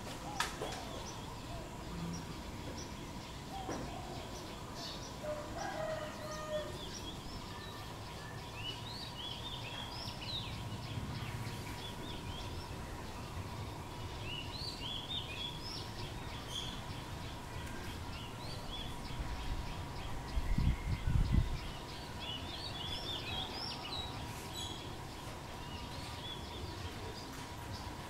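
Bulbul calling: groups of short, high chirping notes come in several bursts. About two-thirds of the way through, a low rumble lasting about a second and a half is the loudest sound.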